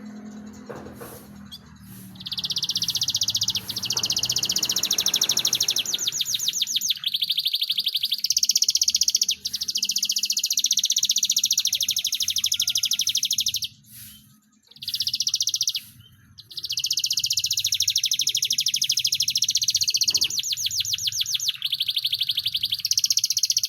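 Domestic canary singing a long, loud song of rapid rolling trills and chattering phrases, high-pitched, with a short break a little past the middle before it resumes.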